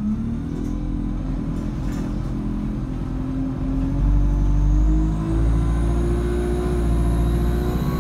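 ADL Enviro200 bus's diesel engine accelerating hard, heard from inside the saloon. The engine note dips briefly at the start, then climbs steadily and grows louder from about halfway, with a faint high whine rising with it.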